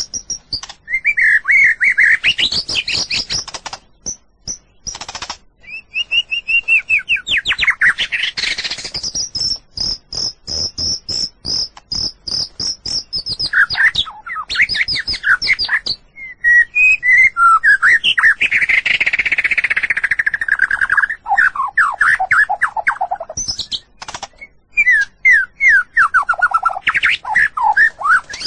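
White-rumped shama (murai batu) singing a long, varied song of whistles, chattering notes and trills, with a fast run of repeated high notes about a third of the way in.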